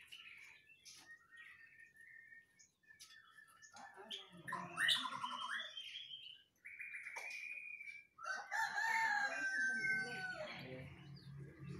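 A young male white-rumped shama (murai batu) singing in its cage: short chirps and whistled phrases, busier and louder from about four seconds in, with one held whistled note. A rooster crows in the background.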